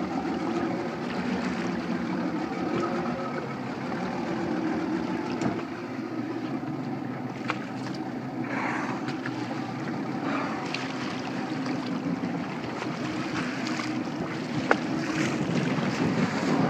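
Motorboat engine running steadily at low speed, a continuous hum, with wind and sea noise over it.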